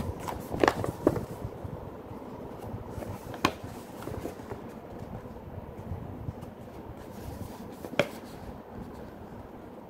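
Paper cards, cardboard inserts and a small instruction booklet being handled and leafed through: soft paper rustling with a few short sharp snaps, two close together about a second in, one near the middle and one near the end.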